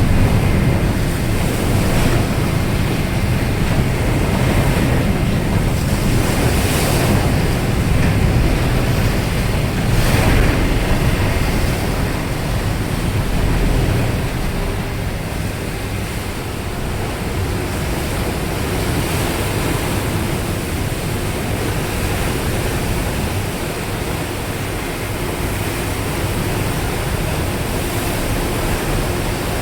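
Wind buffeting the microphone and water rushing past a moving ferry, with a low rumble under it that eases about halfway through.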